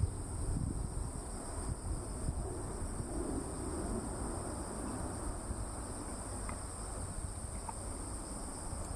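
Steady, high-pitched insect trilling, like crickets, over a low rumble.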